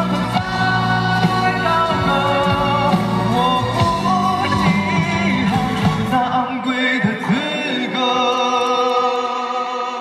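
A male pop singer sings live into a handheld microphone over a full band through a concert sound system. About six seconds in the bass drops out, leaving held chords under the voice.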